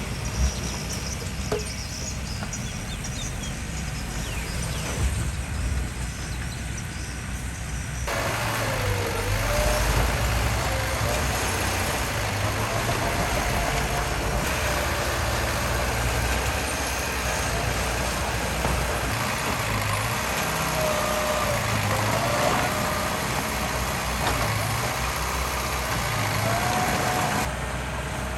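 Diesel engines of heavy earthmoving machinery running. The sound changes abruptly about eight seconds in, and after that a wavering whine rides over the engine rumble.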